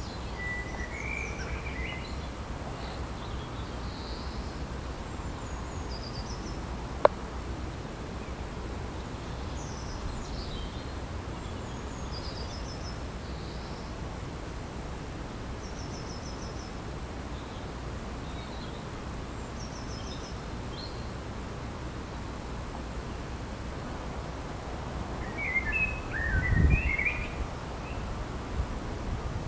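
Small birds chirping and trilling in short, scattered calls over a steady low background rumble, with a louder flurry of calls near the end. A single sharp click about seven seconds in, and a brief low rumble under the last flurry.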